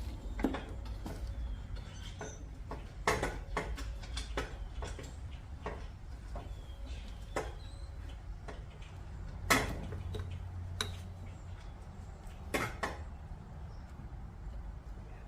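Scattered metallic clinks and knocks of hand tools and header bolts being worked into an engine's exhaust headers, the loudest about three seconds in, near the middle and about three quarters through, over a low steady rumble.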